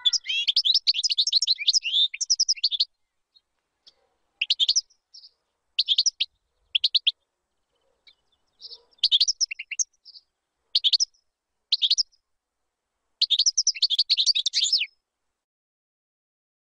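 European goldfinch song: quick, twittering high-pitched phrases, a long run at the start, several short bursts after pauses, and another long run near the end.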